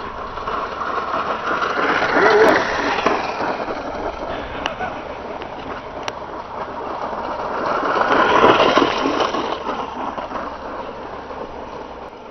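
A bicycle-powered reel lawn mower being pedalled over grass, its cutting reel spinning through the grass with a steady whirring noise. The sound swells and fades twice, peaking about two seconds in and again about eight seconds in, as the mower passes close.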